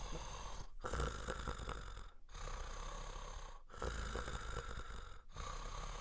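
Stertor, the irregular, snoring-type noise of breathing through a partly obstructed oropharynx. It comes in breath cycles about every one and a half seconds, each broken by a brief pause. The commonest causes are the tongue falling back or a foreign body.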